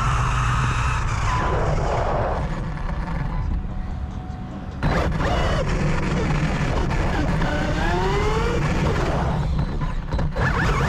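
Electric RC cars running, their motors whining up and down in pitch as they accelerate and slow, over a steady rush of tyre and wind noise. The sound dips for a moment, then jumps back suddenly about five seconds in.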